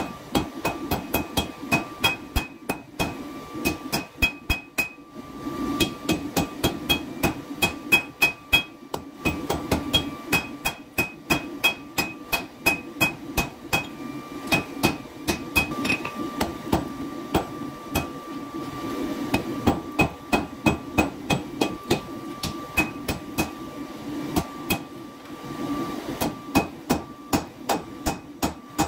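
Hand forging hammer striking a red-hot steel blade on an anvil, about three blows a second in runs with short pauses, the anvil ringing between blows.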